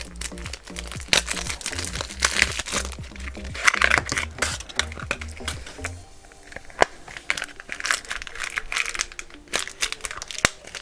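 Plastic toy packaging crinkled and crackled by hand as a blind-pack crate is opened, with sharp clicks throughout. Background music with low notes plays under it and stops about six seconds in.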